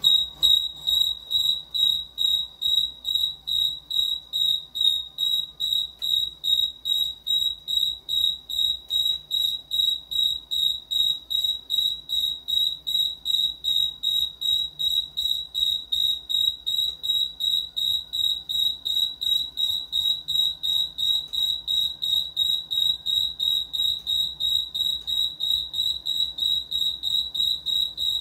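Electronic alarm beeper sounding a high, single-pitched beep about three times a second. It starts suddenly and keeps going over the faint low hum of a running lathe.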